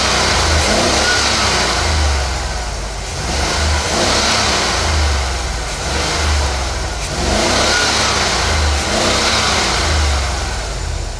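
Car engine running with a misfire that the owner puts down to a failing ignition coil; the sound swells and eases every few seconds.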